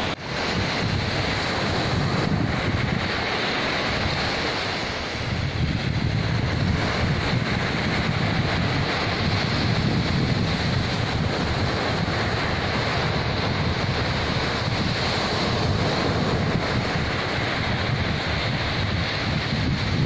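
Sea waves breaking and washing up a sandy beach, a steady surf, with wind buffeting the microphone in a low rumble.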